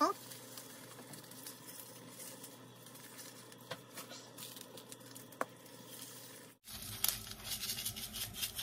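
Brown sugar sprinkled by hand onto sliced bananas in a bowl: faint ticks at first, then from about two-thirds of the way in a close, rapid patter of sugar grains. A brief rising squeak comes at the very start.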